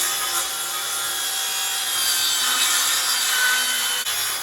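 Electric power saw cutting through wood, a steady, loud cutting noise under load throughout.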